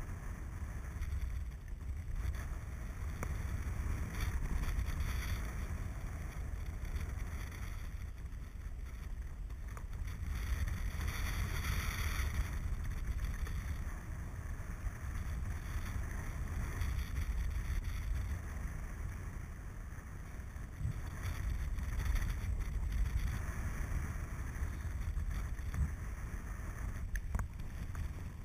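Wind from paraglider flight buffeting the pilot's camera microphone: a steady low rumble with a hiss above it, swelling into a louder rush of hiss a little before halfway.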